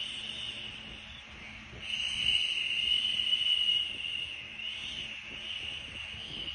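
A woman's voice making a long, steady "shhh" to soothe a baby to sleep: one shush trails off in the first second or so, then after a short breath another long shush starts about two seconds in and fades near the end.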